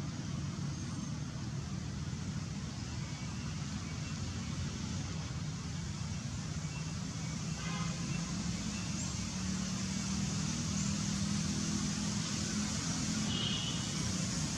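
Steady low rumble of road traffic, with a hum that swells a little in the second half, and a short faint high chirp near the end.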